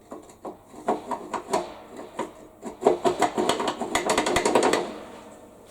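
Metal tools and parts clattering and rattling, a string of quick irregular knocks with a ringing edge that turns into a fast rattle about three seconds in, then dies away near the end.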